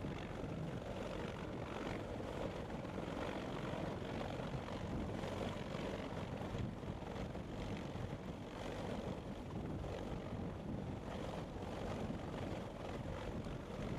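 CH-53 heavy-lift helicopter hovering low overhead while picking up a slung load. Its rotor and turbines make a steady, dense noise with a faint regular beat.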